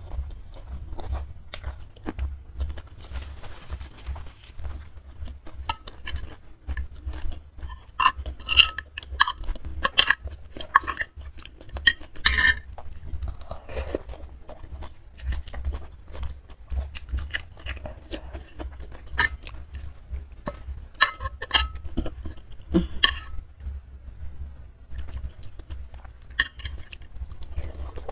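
Close-miked eating of instant noodles in soup: slurps and chewing, with scattered clinks of a metal spoon and fork against a ceramic bowl. A steady low rumble lies underneath.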